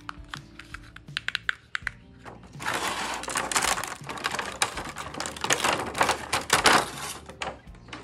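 A few small plastic clicks, then, about two seconds in, loud crinkling and crackling of a clear plastic packaging tray as a toy is pulled out of it, lasting about five seconds. Background music plays underneath.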